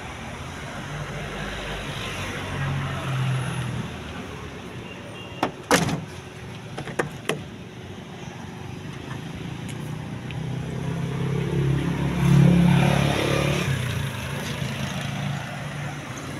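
Steady low vehicle hum, broken by a few sharp clicks and knocks about six and seven seconds in, the sound of a car door and its latch being worked. A passing vehicle rises and falls, loudest around twelve seconds in.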